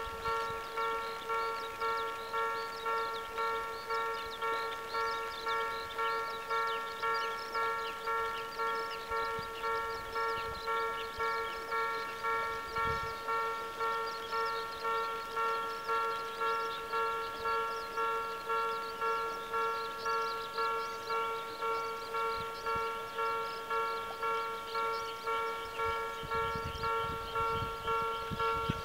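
Railway level-crossing warning bell ringing steadily, a pitched ding repeating about three times every two seconds.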